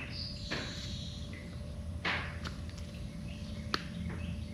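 A few brief high squeaks and sharp metallic clicks as a squashed old crush washer is worked off an ATV's oil drain plug with cutters.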